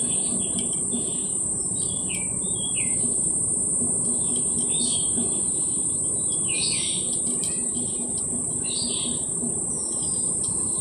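Birds chirping in short, repeated calls, some falling in pitch, over a steady high-pitched insect drone.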